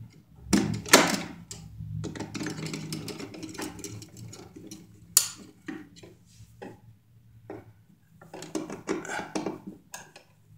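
Screwdriver clicking and scraping against a duplex receptacle and its box while the wires are handled, in irregular knocks and scrapes with a sharp click about five seconds in. A low steady hum runs underneath.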